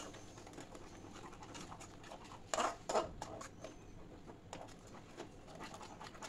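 A spatula stirring and scraping through wet yogurt-and-spice paste in a metal kadai, with a couple of louder scrapes about two and a half and three seconds in.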